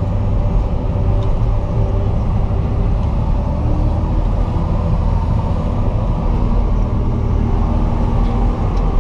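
Diesel engine of a JCB 437 wheel loader running steadily under load, heard from inside the cab as the loader works across a silage clamp.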